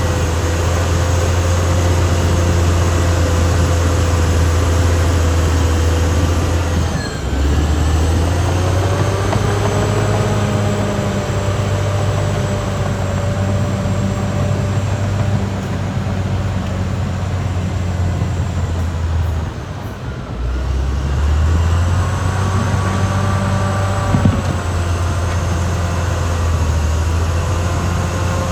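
Caterpillar D6R XL crawler bulldozer working: a steady, loud diesel drone with high whining tones from the tracks and drivetrain. The drone and whine drop briefly and pick up again twice, about a quarter of the way in and again about two-thirds through, and there is a single sharp metallic knock near the end.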